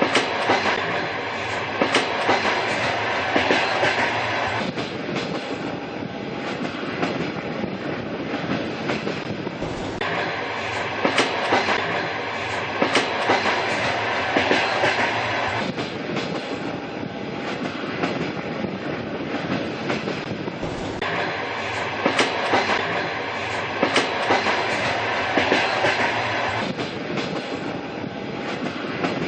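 Train running steadily on the rails, its wheels clacking rhythmically over the rail joints. The same stretch of sound repeats about every eleven seconds.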